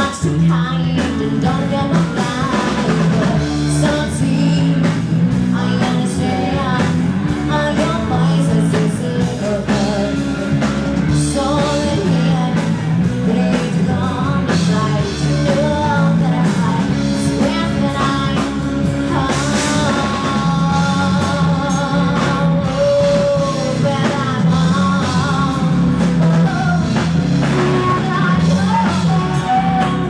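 Live band playing: a woman sings lead over electric guitar, bass guitar and drum kit, with a steady beat throughout.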